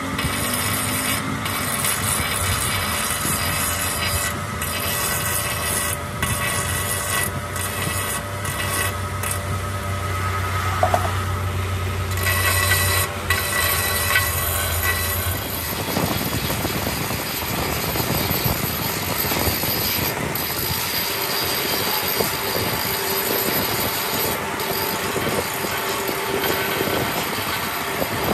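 Grinding wheel on a flexible-shaft grinder running steadily against the repaired break in a cast-iron tractor engine block, a whine over coarse metal grinding. About halfway through the low hum drops away and the grinding sound turns rougher.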